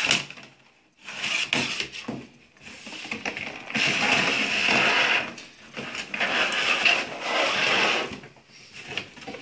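Clear plastic blister tray being slid out of a cardboard figure box: crackling plastic and scraping cardboard in long rustling stretches, with a sharp tap at the start.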